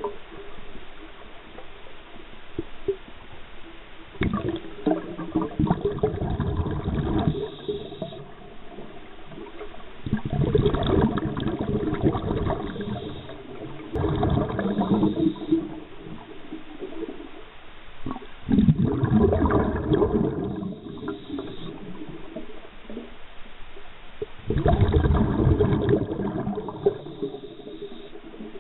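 Water gurgling and sloshing heard through an underwater camera, swelling in about five surges of two to three seconds each, with quieter water noise between.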